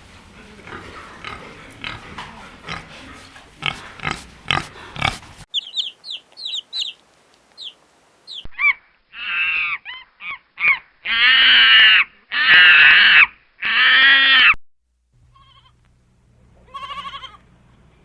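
A run of animal sounds: about five seconds of rough, noisy sounds with clicks, then a string of quick high chirps, then loud drawn-out pitched calls about a second each, the last three the loudest.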